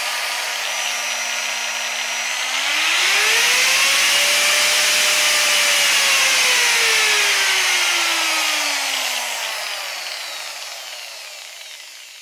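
Interskol UShM-125/1100E variable-speed angle grinder running free with no disc: a low, steady motor whine at the lowest speed setting. About two and a half seconds in it speeds up to a higher, louder whine. From about seven seconds it slows, its pitch falling and the sound fading away, with the run sounding smooth and soft.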